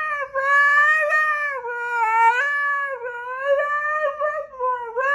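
A dog singing on command: one long, high, wavering howl that dips briefly in pitch several times.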